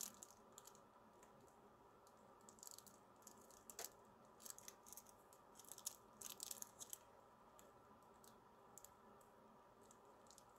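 Near silence: faint room tone with scattered soft clicks, clustered in the middle few seconds, and one sharper tick about four seconds in.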